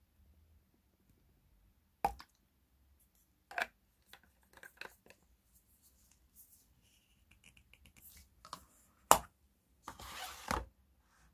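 A plastic toner bottle and its screw cap being handled: scattered sharp clicks and knocks, with a short run of fast ticks around seven seconds in. The loudest knock comes about nine seconds in, followed by a brief scraping rustle.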